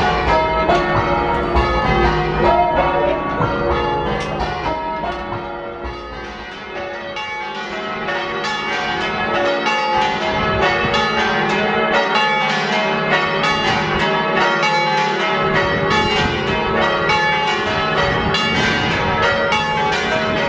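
Heavy ring of six 1600s church bells rung in changes, strike after strike in a continuous stream, with a clonky, old-fashioned tone and a decent boom.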